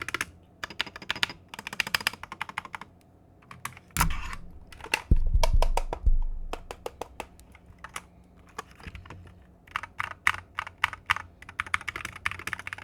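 Typing on an Akko MonsGeek FUN60 Pro magnetic keyboard: quick runs of keystrokes with short pauses and a couple of deeper thumps about four and five seconds in. This is the better of the reviewer's four units: its stabilizers and switches seem a little better, which he thinks may come from a bit of lube.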